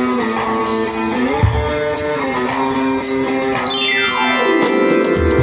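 Band playing during a soundcheck: held electric guitar chords over a steady ticking beat, with a long falling pitch slide about three and a half seconds in.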